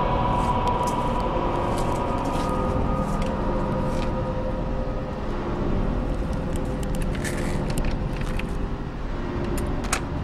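Horror-film soundtrack drone: a steady rumbling noise bed with faint held tones, over which come scattered short clicks and knocks, more of them in the second half.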